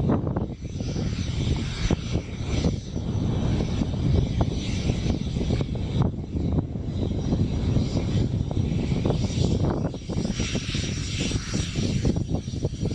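Propeller airliner engines running, heard through heavy wind buffeting on the microphone, which comes as an uneven, gusting rumble.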